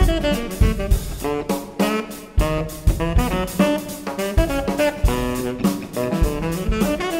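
Seven-piece jazz band playing: a horn line over drum kit and guitar, with frequent drum hits and low kick-drum thumps.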